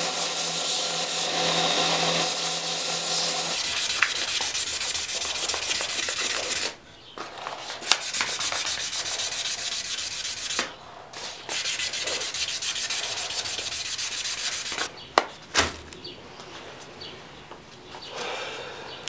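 Belt grinder sanding cocobolo knife-handle scales, the motor's hum under the hiss of wood against the belt, the hum stopping about three and a half seconds in. Rubbing then goes on in long stretches with short pauses, and a couple of sharp clicks come about fifteen seconds in.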